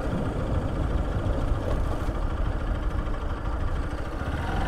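Motorcycle engine running steadily, a low even rumble.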